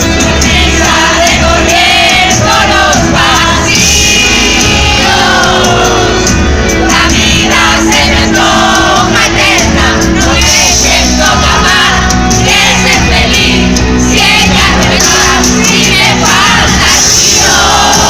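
Very loud live pop concert: a band playing with singing over it, and crowd noise from the audience.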